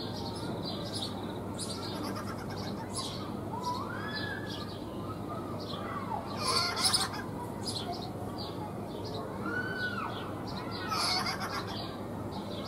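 Rock hyrax (rock rabbit) calling: a scattered series of high, squeaky chirps and short rise-and-fall whistles, loudest about six and a half seconds in and again near eleven seconds.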